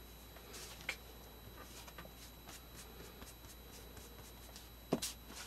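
Faint rustling and rubbing of painted paper pages being handled on a tabletop, with light clicks about a second in and near the end.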